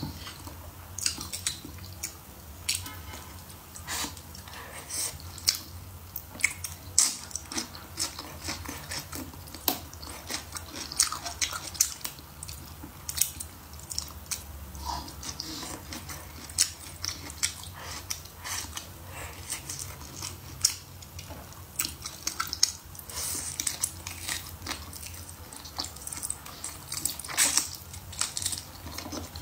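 Close-miked chewing and biting of braised pig's trotter: a steady stream of short, irregular wet smacks and clicks from the mouth.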